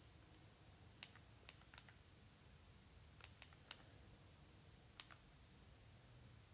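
Near silence with about seven faint, short clicks at irregular intervals, like buttons being pressed.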